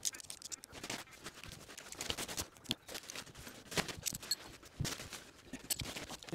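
Rustling and irregular light clicks and knocks as a nylon tent is spread out and pitched by hand, with poles and pegs being handled.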